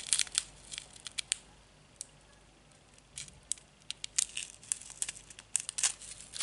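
Small clear plastic zip bag of diamond painting drills crinkling and crackling as it is handled, in two spells of quick crackles with a quieter stretch in between.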